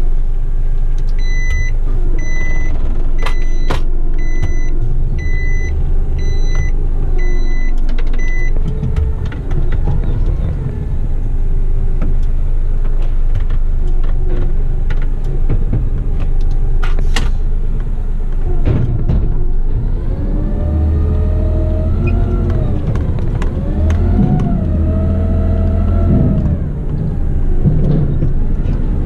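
Isuzu front-lift truck's diesel engine running, with a warning beeper sounding seven short beeps about once a second in the first eight seconds or so. Later the engine revs rise and fall several times.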